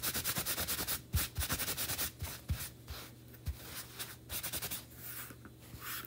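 Wax being rubbed by hand over small wooden cutouts: runs of quick back-and-forth scratchy strokes with short pauses between them, and a few soft low bumps against the work surface.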